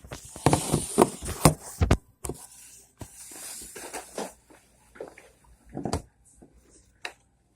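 Plastic zipper bag crinkling and rustling as it is handled, with a dense run of sharp crackles in the first two seconds, then a softer rustle and a few scattered clicks.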